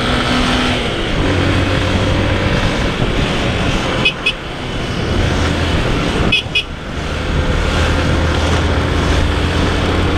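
Yamaha Factor 125's single-cylinder four-stroke engine running under way in traffic, with steady wind and road noise. A horn gives a short double beep about four seconds in and again about two seconds later.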